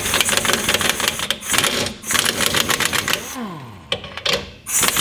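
Pneumatic impact wrench hammering on the lower bolt of a car's rear shock absorber, undoing it. It runs in a fast rattle for about three seconds, winds down with a falling whine, then starts rattling again shortly before the end.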